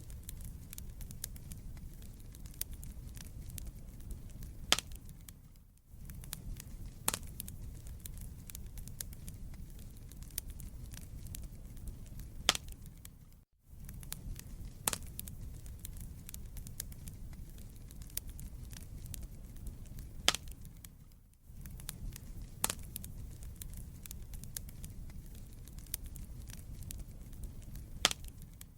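Wood fire burning in a fireplace: a steady low rumble with irregular sharp crackles and pops. The sound drops out briefly about every eight seconds.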